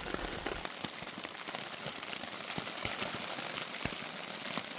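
Steady rain falling, with many separate drops tapping irregularly close by.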